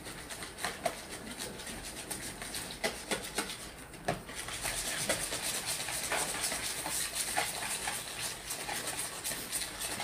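Wire whisk beating eggs and melted butter in a plastic mixing bowl: a rapid run of clicks and scrapes against the bowl. About four seconds in it gets faster and louder.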